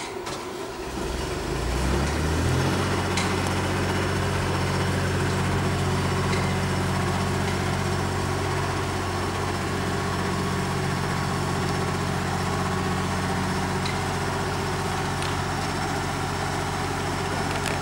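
Fire engine's diesel engine running as the truck creeps forward: its pitch and level rise about a second or two in, then it runs steadily at a low, even speed.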